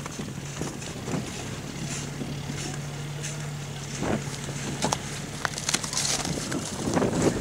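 A vehicle engine runs steadily with a low hum, while a shovel scrapes and crunches through slush and broken ice in open water. The crunches come in scattered bursts, starting about four seconds in and loudest near the end, with wind on the microphone.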